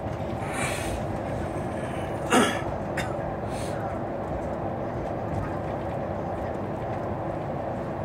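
Steady drone of a MAN single-deck bus running at cruising speed, engine and tyre noise heard from inside the cabin. About two and a half seconds in, a short, loud sound falling in pitch cuts through. A few fainter hisses and a click fall around it.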